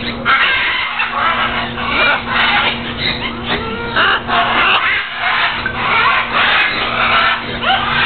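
Parrots squawking and chattering, loud harsh calls following one another with only short breaks, over a steady low hum.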